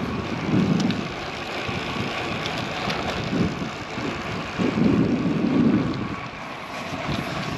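Wind rushing over the microphone with road noise from a road bicycle in motion, swelling louder just before a second in and again around five seconds in.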